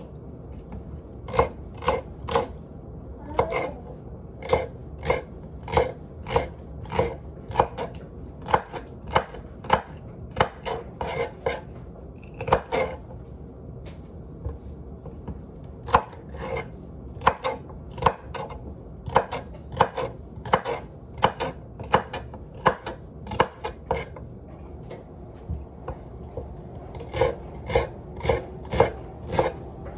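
Kitchen knife chopping celery on a wooden cutting board: sharp knocks of the blade through the stalks onto the board, roughly one or two a second, with a couple of short pauses.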